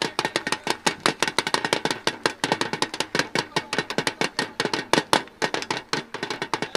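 Small dhol beaten fast by a young boy, a busy, unbroken stream of sharp drum strokes, several a second, picked up close by a handheld microphone held at the drum.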